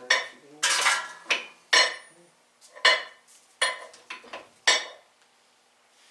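Metal tools clanking and clattering against each other as they are handled: about eight irregular, ringing clanks that stop about five seconds in.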